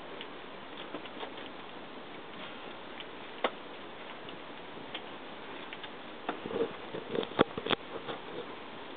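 A Bengal cat moving inside a homemade cat exercise wheel as it turns: scattered soft taps and clicks, one sharp knock about three seconds in, and a cluster of louder knocks from about six to eight seconds in, over a steady background hiss.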